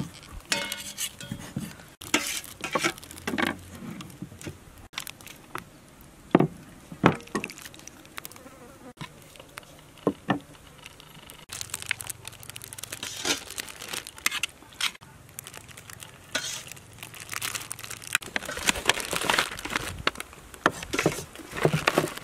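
Cleaver chopping braised pig's head meat on a wooden chopping block, a series of sharp knocks, followed in the second half by a metal spatula scraping meat off a metal tray and a plastic bag rustling, with a low buzz underneath for a few seconds in the middle.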